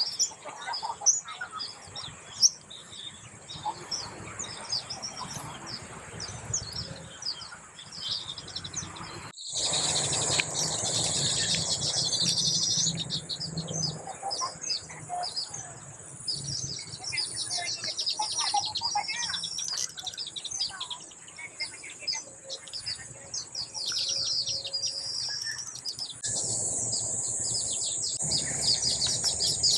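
Baya weavers chattering around their nests: many rapid, high chirps overlapping without pause, louder after about nine seconds.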